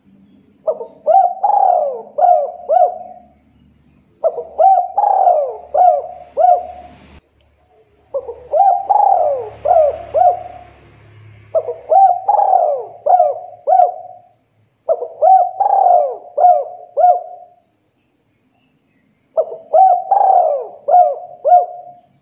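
Spotted dove (tekukur) cooing: six phrases, a few seconds apart, each a quick run of four or five rising-and-falling coos.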